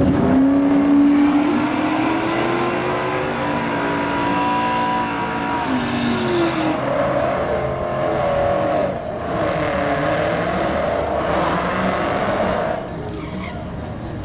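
Drag-strip burnouts: a 1970 Ford Mustang fastback's V8 revs with a steadily rising pitch as its rear tires spin. About halfway through, this gives way to a Dodge Challenger SRT Demon's supercharged V8 held at high revs while its rear tires squeal.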